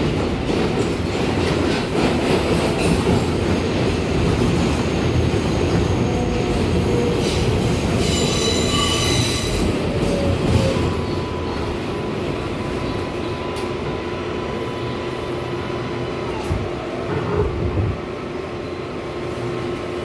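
R142A subway car running on the rails, heard from inside the car: a steady rumble, with high wheel squeal about eight to ten seconds in. It grows quieter over the second half as the train slows into the station.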